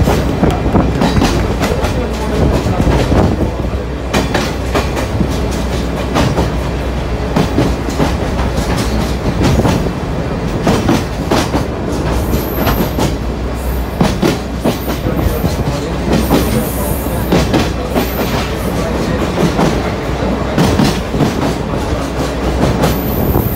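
Sagano Scenic Railway trolley car running on its TR209 bogies, heard from inside the open-sided car: a steady loud rumble of wheels on rail with a continual clickety-clack as the wheels pass over rail joints.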